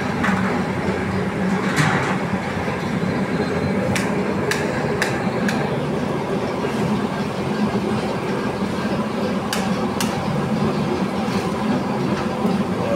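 Metal ladle and skimmer knocking against large metal woks of syrup and gulab jamun, a scattered handful of sharp clinks over a steady low rumble.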